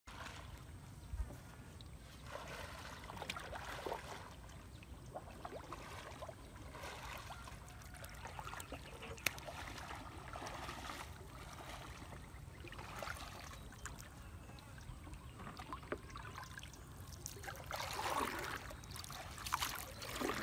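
Faint water sounds on a lake: light lapping and small splashes, with scattered soft clicks and knocks.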